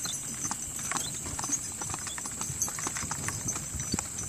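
Hooves of a pair of red mules clip-clopping on paved road as they pull a wagon at a walk: a steady, uneven patter of many overlapping clops.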